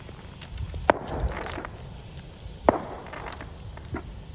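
Fireworks going off: two sharp bangs about two seconds apart, each followed by a short crackle, and a smaller pop near the end.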